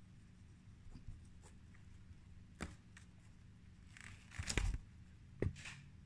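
Pen and paper sounds close up: a few light scratches and ticks, then a louder papery scratching rustle with a soft knock about four and a half seconds in, and a sharp tap followed by a short scratch near the end.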